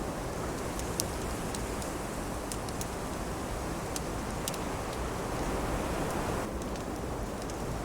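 Steady wind mixed with a wood fire crackling, its sharp pops coming every second or so. The wind swells briefly past the middle.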